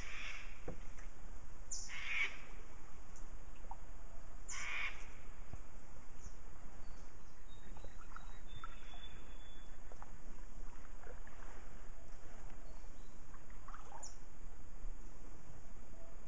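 A crow cawing, three harsh calls in the first five seconds, followed by a few faint short bird calls.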